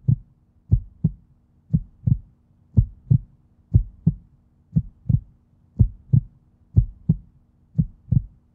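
A heartbeat sound effect: pairs of low thumps, about one pair a second, over a faint steady hum.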